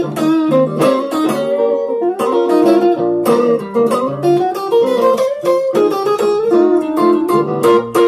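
Electric guitar playing a blues in B flat through a Zoom G1on multi-effects processor, a steady flow of picked notes and chords.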